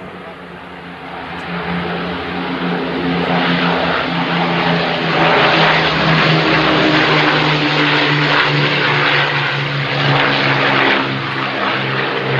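Avro Lancaster bomber flying past, its four Merlin piston engines and propellers running with a steady deep hum. It grows louder over the first five seconds or so, then holds.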